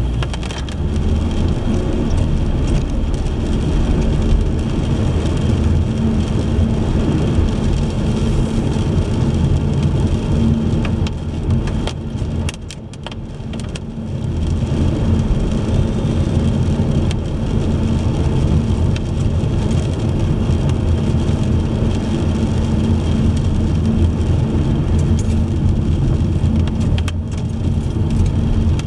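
Car driving on a wet road: steady engine and tyre noise, which dips briefly about halfway through before picking up again.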